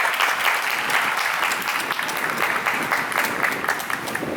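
Stadium crowd applauding, a dense steady clapping that eases a little near the end.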